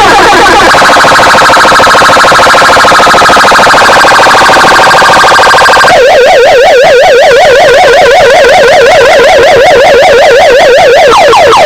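Electronic siren-like warbling effects played at full volume through a DJ sound box system: fast up-and-down wails that switch to a different, lower warble about six seconds in.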